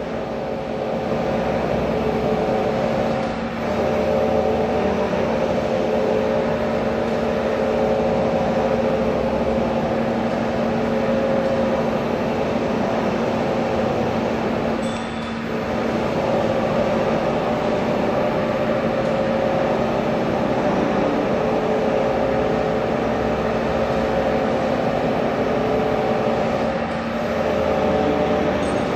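Pipe-bending machine running: a steady mechanical hum over a noisy whir, dipping briefly three times.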